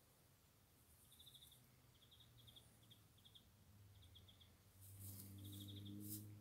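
Faint high chirps in short rapid trills, several times over, with a low hum that swells about five seconds in and a sharp click near the end.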